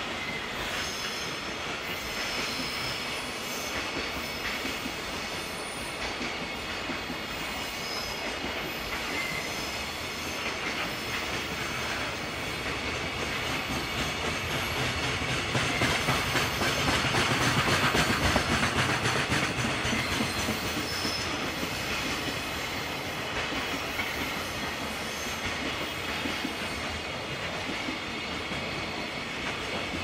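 Freight train of container flatcars rolling past: a steady rumble of steel wheels on the rails, with faint thin wheel squeal above it. It swells louder for a few seconds about halfway through.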